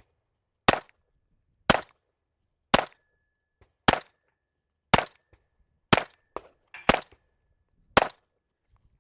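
Glock 44 .22 LR pistol firing eight shots at a steady pace of about one a second, with a faint brief ringing tone after a few of them.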